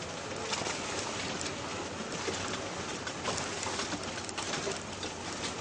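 Off-road vehicle creeping along a rutted dirt track: a steady rumble of engine and tyres, with many small crackles and rattles throughout.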